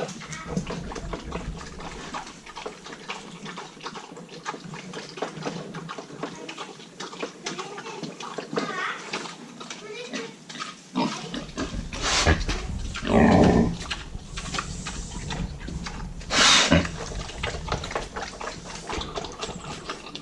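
Miniature sow in heat grunting, with a few louder calls about twelve, thirteen and sixteen seconds in. The deep moaning noises are one of the signs of her heat.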